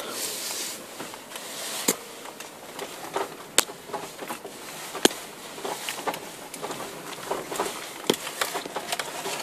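Road noise as a steady hiss inside a moving vehicle on a rough street, with scattered sharp knocks and rattles, the loudest a few seconds apart.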